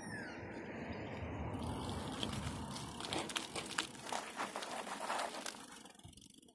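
Bicycle tyres rolling over loose ground, crunching and crackling on grit and stones, growing denser a couple of seconds in and fading near the end. A short falling squeak is heard at the very start.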